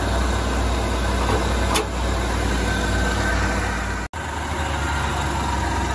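1989 Ford E-150 van engine idling steadily, running the way it should. The sound drops out for an instant about four seconds in.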